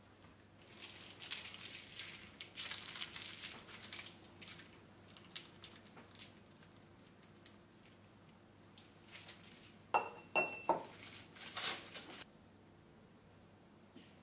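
Crinkling and rustling in two spells of bursts as things are handled at a kitchen counter, with a few light clinks of dishes about ten seconds in.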